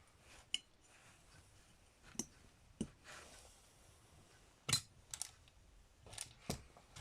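Small metal carburetor parts and hand tools being handled: about seven light, sharp clicks and taps at irregular intervals, the loudest a little under five seconds in.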